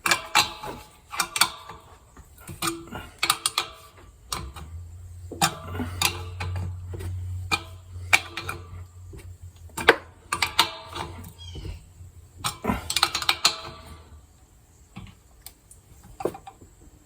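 14 mm wrench clicking and scraping on metal in irregular clinks as a new pressure gauge is tightened into an air compressor fitting, with a low hum through the middle.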